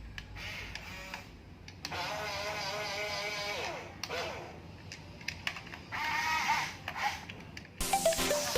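Small electric motor of a radio-controlled toy construction vehicle whining at a steady pitch for about two seconds, then winding down in a falling glide; a second, shorter whine comes about six seconds in, with a few light clicks between.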